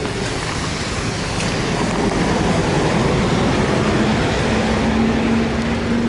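Street traffic noise with a minibus engine running close by; its steady hum comes in about four seconds in and grows louder.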